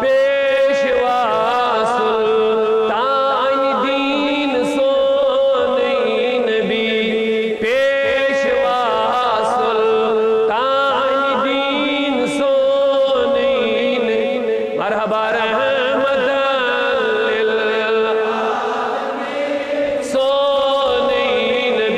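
A man singing a naat (devotional poem praising the Prophet) in a long, wavering melody with drawn-out, ornamented notes and no clear words, over a steady held drone.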